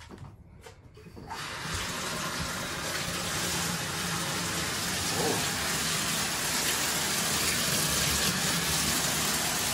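Water turned on about a second in and running steadily into a bathtub.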